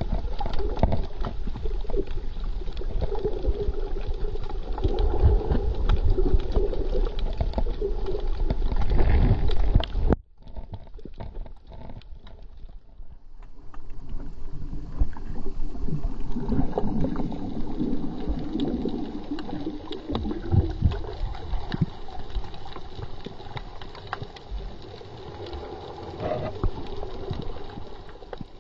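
Muffled underwater sound picked up by a submerged camera: water moving and gurgling, dotted with many small clicks and crackles. It cuts out abruptly about ten seconds in and returns a couple of seconds later.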